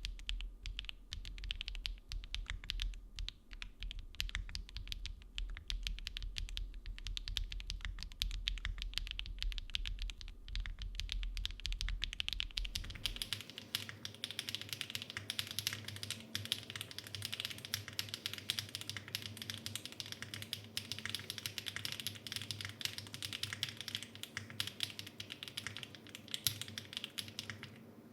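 Continuous fast typing on an Aero75 mechanical keyboard with stock HMX Swift switches, an aluminium plate, case and plate foam and Domikey keycaps: a dense run of keystrokes. A low hum underneath stops about halfway through.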